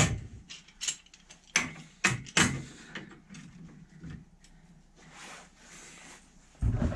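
Clamp being fitted and tightened to hold a generator stand onto a steel workbench: a quick series of sharp metal knocks and clicks, then quieter fiddling, and a heavier thump near the end.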